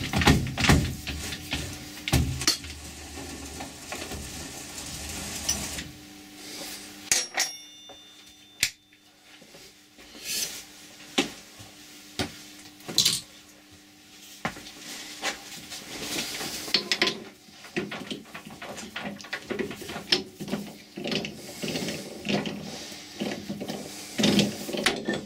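Metal clinks and knocks of tooling and workpiece being handled on a Colchester Student metal lathe. A low hum stops about six seconds in, and there is a short metallic ring a second later. Rustling handling near the end as the copper disc's mandrel is gripped.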